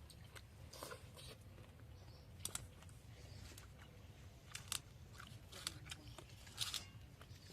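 Faint chewing and crunching of people eating a meal, with scattered short clicks over a low steady hum.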